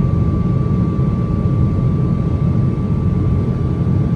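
Boeing 777-200ER engine and airflow noise heard inside the passenger cabin: a steady low rumble with a faint, constant whine above it, shortly after takeoff.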